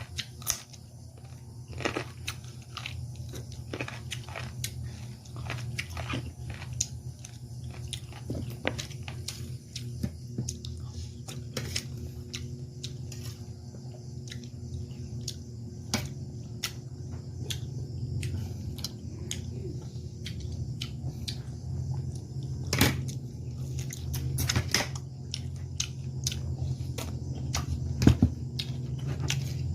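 A person chewing and biting food close to the microphone, with many small wet clicks and smacks. A few louder knocks come in the last third. A steady low hum runs underneath.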